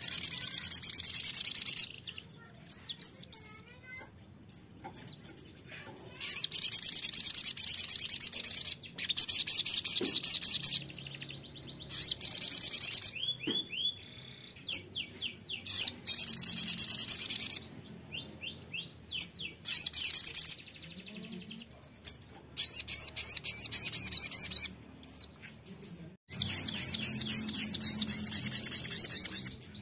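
Sogon songbird singing: loud, high trilling phrases a second or two long, repeated about eight times with short gaps, and a few quick sweeping whistled notes between them.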